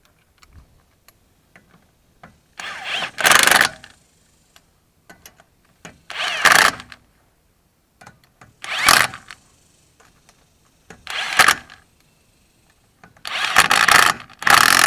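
Impact wrench run in five short bursts, roughly every two and a half seconds, the last one longest, driving the wheel's lug nuts down tight one after another.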